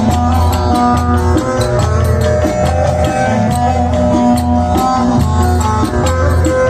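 Instrumental Turkish folk music: a plucked string melody over a steady drum beat, with sharp clicking percussion.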